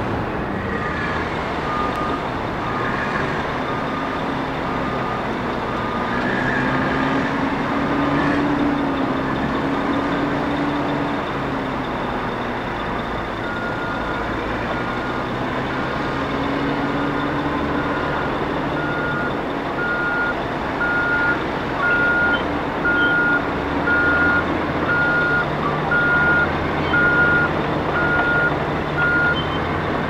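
Diesel engine of a large Kawasaki wheel loader running, its pitch rising and falling as it manoeuvres on dirt. Backup alarms beep over it: one for the first several seconds, then a higher-pitched one from about halfway that grows louder.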